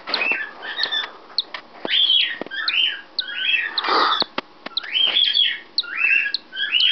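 A cockatiel chick peeps from inside its cracked egg while hatching: a run of short, high, arched chirps, about two a second, with a few short clicks between them.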